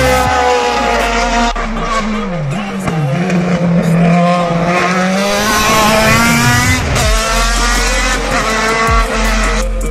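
Race car engines revving hard as the cars accelerate up the hill, their pitch rising through the gears several times in succession.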